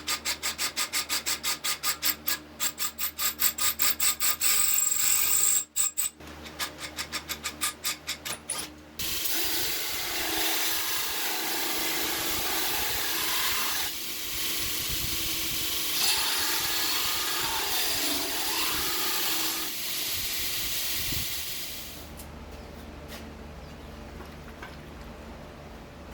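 Hand and shop tools working a knife: a fast, even run of strokes, about five a second, then a steady rasping, rubbing noise with a wavering pitch for about thirteen seconds, easing to a quieter stretch near the end.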